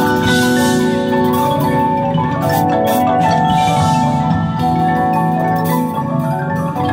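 Drum corps front ensemble playing live: marimbas, vibraphones and chimes sounding held chords, with a cymbal wash about half a second in and a few sharp percussion strikes around the middle.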